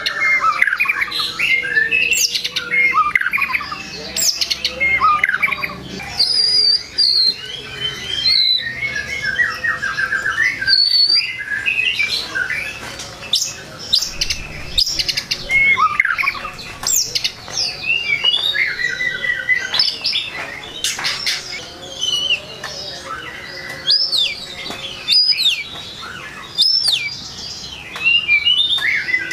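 White-rumped shama (murai batu) in full song: a continuous run of varied phrases, clear whistles, fast trills and sharp chattering notes, with short pauses between phrases.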